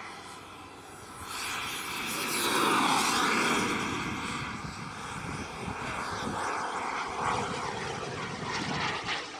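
Turbine engine of a large RC F-16 model jet during a fast low pass, swelling to its loudest about three seconds in, with the pitch dropping as the jet goes by, then running on steadily as it pulls away and climbs.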